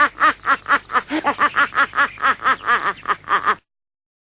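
A man laughing in a rapid, steady string of 'ha' pulses, about four to five a second, that cuts off abruptly near the end.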